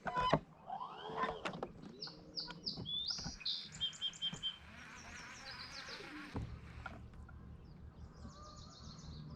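Songbirds chirping in quick runs of short, high notes, with a few sharp knocks near the start. From about six seconds in, a low steady hum comes in under the birdsong.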